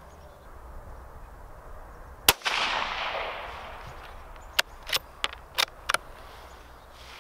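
A single shot from a .17 HMR rimfire bolt-action rifle about two seconds in, its report trailing off over a second or so. About two seconds later comes a quick run of five sharp metallic clicks as the bolt is worked to eject the case and chamber the next round.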